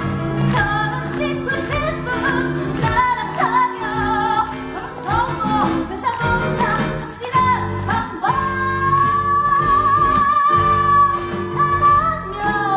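A woman singing a musical-theatre number over loud backing music. About two-thirds of the way through she holds one long, wavering note for about three seconds.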